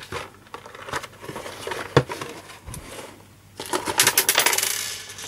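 A cardboard product box being opened and its contents handled. A sharp click at the start and a knock about two seconds in are followed, a little past three and a half seconds, by about a second and a half of dense rustling and scraping.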